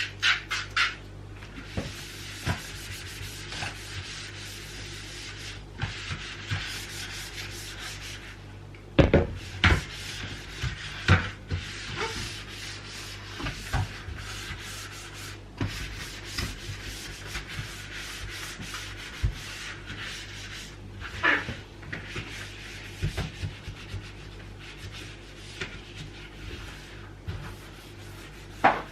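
Hand scrubbing and wiping a surface: a near-continuous rubbing scrape in repeated strokes with brief pauses. Scattered light knocks come through it, the loudest about nine to eleven seconds in and again around twenty-one seconds.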